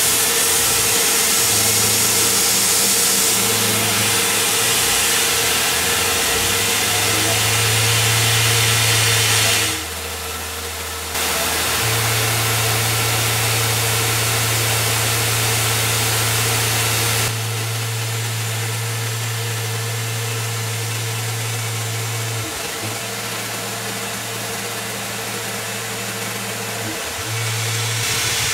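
Tormach CNC milling machine running, its spindle and end mill cutting aluminum with a steady mechanical drone over a broad hiss. The sound drops and shifts abruptly several times, around ten, eleven and seventeen seconds in.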